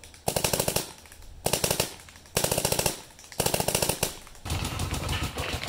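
Cobra Angel LED electropneumatic paintball marker firing four rapid strings of shots, about a dozen a second, each string lasting about a second.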